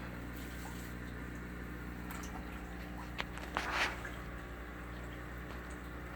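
Small splashes and drips at an aquarium's water surface as blood parrot fish snap up floating pellets, with a louder splash about three and a half seconds in, over a steady low hum.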